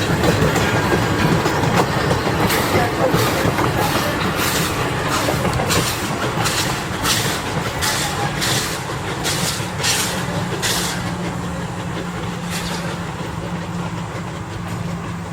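Edison 4-4-0 steam locomotive and its train running on the track, with short hissing beats about twice a second, gradually getting quieter.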